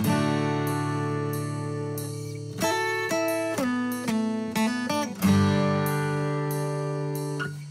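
Background music on acoustic guitar: picked notes and strummed chords, some left ringing.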